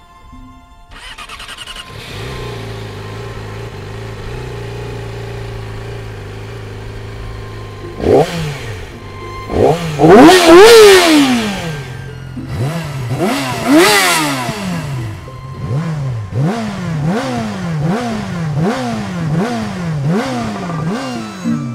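Yamaha R6 inline-four engine idling steadily, then revved hard a few times from about eight seconds in. It ends in a run of quick throttle blips about once a second, each a sharp rise and fall in pitch.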